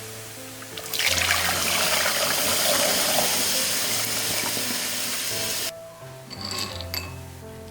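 A loud rush of running water that starts about a second in and cuts off sharply near the end, over background music.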